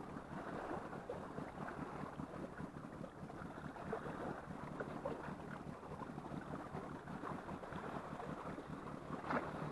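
Steady sea wash and wind at the shoreline, with many faint small ticks scattered through it.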